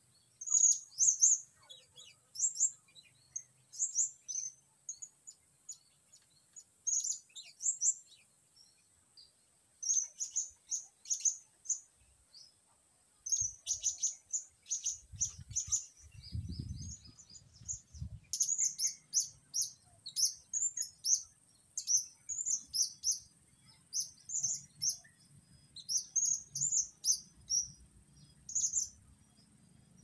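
Blue-crowned hanging parrots (serindit) calling: short, sharp, high-pitched chirps in quick clusters, repeated throughout, over a steady high insect drone.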